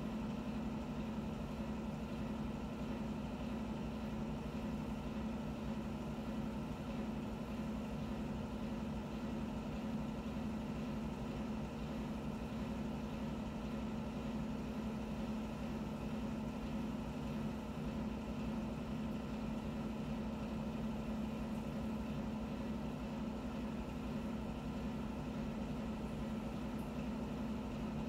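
A steady, unchanging low mechanical hum, with fainter higher tones above it.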